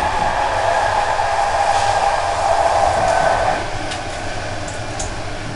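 Running noise of a moving express train heard from inside a passenger coach: a steady rumble and hiss with a whine that fades about three and a half seconds in, and a couple of light clicks near the end.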